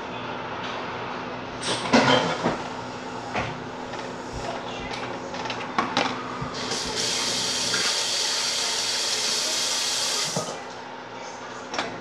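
Kitchen tap running into the sink for about four seconds: a steady hiss of water that starts about two-thirds of the way in and cuts off abruptly. It is preceded by a few knocks and clatters.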